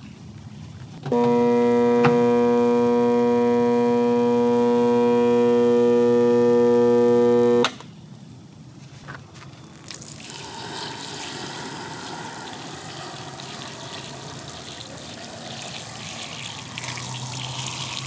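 The burnt-out Hoover Nano Lite vacuum motor gives a loud, steady electrical hum that never rises in pitch and cuts off abruptly after about six seconds. Later, water pours and splashes onto the motor casing and the wet ground.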